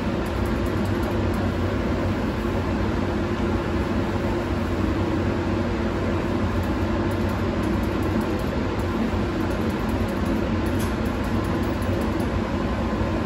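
Steady rushing air of a powder coating booth's exhaust fan, together with compressed air hissing from an RC-1 electrostatic powder gun spraying clear powder at about 30 PSI.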